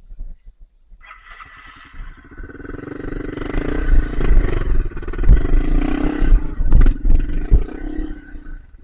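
Dirt bike engine revving hard under load, coming closer and growing loud, then easing off near the end, with a few sharp knocks over it.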